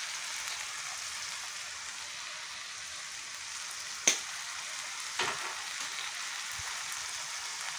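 Chicken feet frying in a pan, a steady sizzle, with a sharp tap about halfway through and a softer one a second later.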